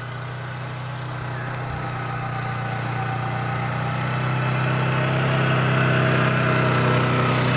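ATV engine running at a steady pitch as the quad approaches, growing steadily louder.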